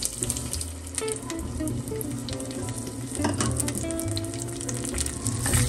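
Raw white rice poured into a stainless-steel pot of oil with onion and garlic, the grains pattering in and crackling in the oil as many small crackles. Soft background music plays underneath.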